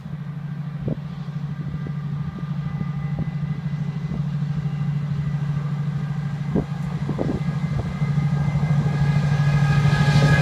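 Colas Rail Freight Class 70 diesel locomotive hauling a freight train on approach, its engine a steady low drone that grows louder as it nears. Higher tones build up near the end as it draws level.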